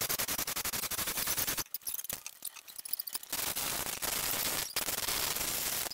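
Manual chain hoist clicking rapidly as its hand chain is worked, its ratchet and gears letting a power hammer's ram down into place. The clicking breaks off briefly a little under two seconds in, then starts again.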